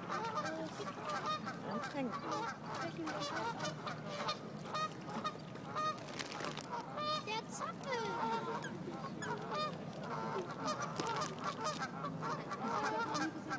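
A flock of waterbirds calling over one another in a constant chatter of short honking calls, with scattered sharp clicks.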